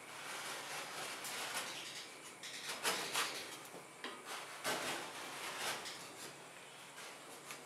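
Metal spatula scraping across a steel ice-cream cold plate, pushing frozen ice cream up into a roll, in a series of uneven scraping strokes, loudest about three seconds in.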